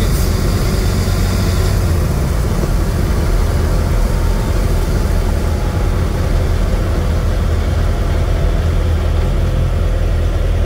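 Turbocharged air-cooled VW Beetle flat-four engine running while the car is driven, a steady low drone throughout.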